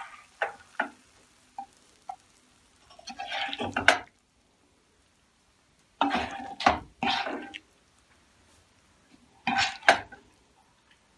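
A spatula scraping and tapping against a non-stick pan as cooked soya chunks and capsicum are scooped out, in a few short bursts several seconds apart.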